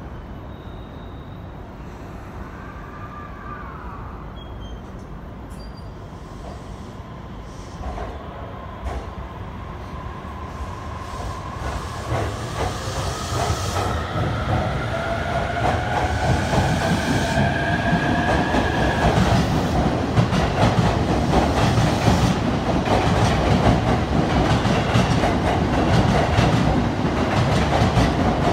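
E259 series Narita Express electric train pulling away and gathering speed: its motors whine, rising slowly in pitch, while the clickety-clack of the wheels over rail joints grows steadily louder.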